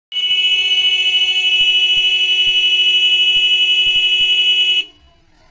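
A loud, steady buzzing alarm-like tone held for nearly five seconds, then cut off sharply.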